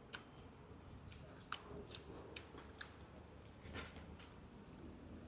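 Quiet eating sounds: scattered small clicks and smacks of a man chewing mutton and rice and working the rice and curry with his fingers on a leaf plate, with a short rustle about two-thirds of the way through.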